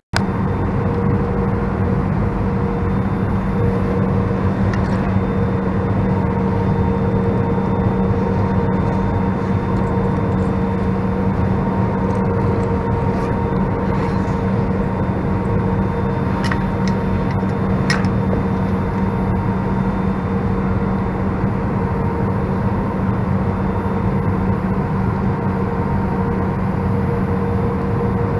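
Steady cabin drone inside an Airbus A319 on approach, airflow and its engines at low power, with a few steady hums under it. Two faint clicks about two thirds of the way through.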